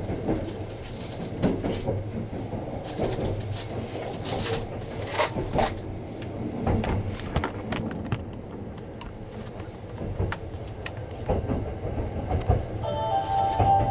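Inside a 285-series sleeper train, a steady low running rumble with scattered clicks and knocks as the train moves off. About a second before the end, the onboard announcement chime starts playing.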